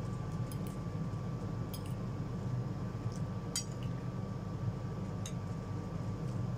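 Metal spoon and fork clinking lightly against a plate of instant noodles as they are twirled: a handful of short clicks, the sharpest about halfway through. A steady low hum underneath is the loudest thing throughout.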